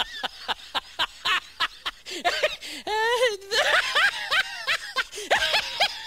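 High-pitched laughter in quick short bursts, about three a second, with a longer wavering cry about three seconds in, then more bursts of laughing.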